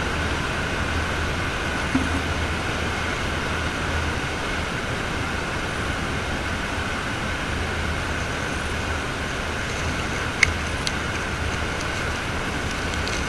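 Steady outdoor background noise picked up by a GoPro, with a low rumble underneath and a constant high hum. One sharp click comes about ten seconds in.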